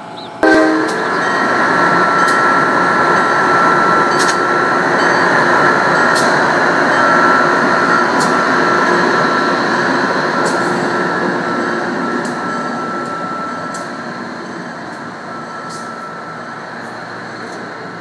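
Amtrak AEM-7 electric locomotive and Amfleet coaches passing close at speed: a loud rush of steel wheels on rail with a steady high tone running through it. It starts abruptly about half a second in and fades gradually over the last several seconds, with sharp clicks every couple of seconds.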